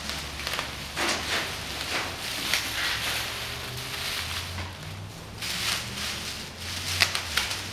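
Plastic bubble wrap crinkling and rustling in repeated bursts as it is pulled off a plasma torch and its leads, with a few sharp clicks near the end.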